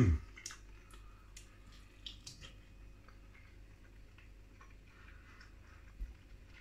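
Someone eating a barbecue chicken wing: a short hummed "mm" that falls in pitch at the start, then scattered soft clicks and smacks of chewing, and a dull low thump near the end.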